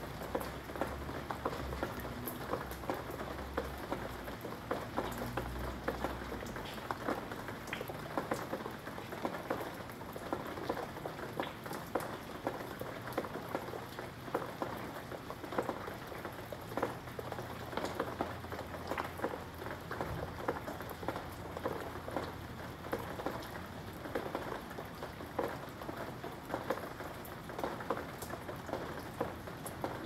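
Steady rain falling on wet brick pavers and garden leaves, with many close individual drops tapping.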